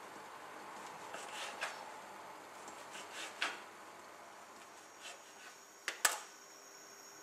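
Kitchen knife cutting through slices of bread into crouton cubes on a plastic cutting board: soft scraping cuts and light knocks of the blade meeting the board, spaced irregularly. Near the end comes one sharp click, followed by a steady high-pitched whine.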